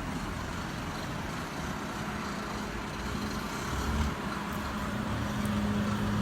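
Steady road traffic noise, with a low engine hum coming up about four seconds in.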